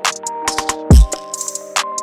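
Electronic background music: steady synth notes over regular hi-hat ticks, with a heavy bass drop about a second in.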